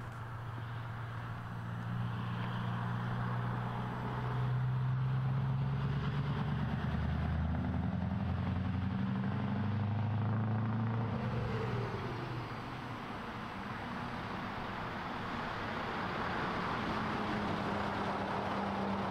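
Diesel lorry engine running steadily with a low drone, getting louder through the middle and easing off about twelve seconds in before building again.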